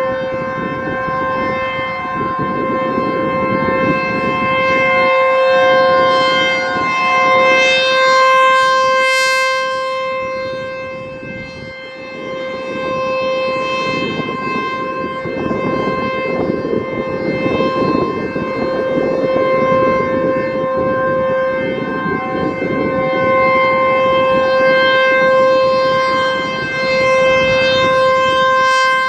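American Signal T-128 outdoor warning siren sounding a steady tone during its monthly test. The pitch holds level while the loudness swells and fades every several seconds as the rotating horn sweeps past.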